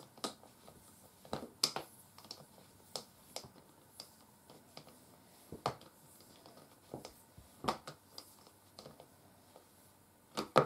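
Power cord being wound around the handle of a Maytag Satellite canister vacuum: irregular light clicks and taps as the cord knocks against the handle and body, with a sharper knock near the end.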